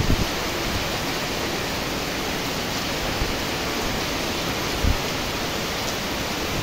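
Heavy rain falling steadily as a dense, even hiss. There are two brief low thumps of wind buffeting the microphone, one at the start and one about five seconds in.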